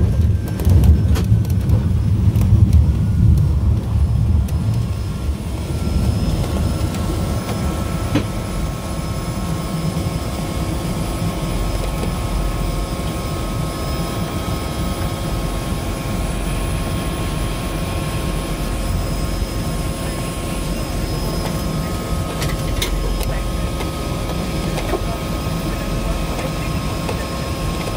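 Floatplane engine and propeller running steadily as the plane moves across the water, heard from inside the cabin. For the first few seconds spray hitting the float adds a loud rushing crackle over the drone, which then settles to an even engine drone.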